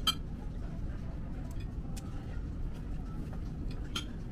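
Steady low background rumble of a restaurant room, with a sharp click just after the start and another about four seconds in, and a few fainter ticks between.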